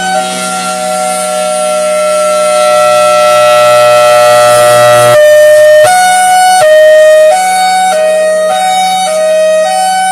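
Federal Signal Thunderbolt 1003 warning siren sounding an erratic 'screwy' hi-lo signal. It holds one lower tone for about five seconds, sagging slightly in pitch, then switches between a high and a low pitch at uneven intervals.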